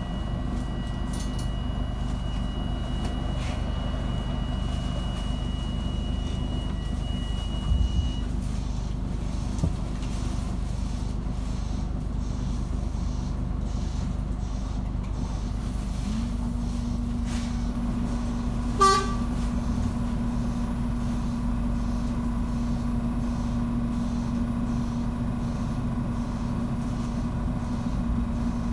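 Inside a New Routemaster (LT-class) hybrid London bus: a steady low drive drone, with a thin high tone for the first eight seconds. About sixteen seconds in a steady hum starts suddenly and holds, and about nineteen seconds in there is one short, loud pitched sound.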